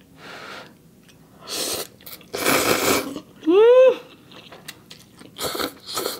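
Several long, hissing slurps of instant ramen noodles drawn into the mouth, with a short hummed 'mm' a little past halfway and another slurp near the end.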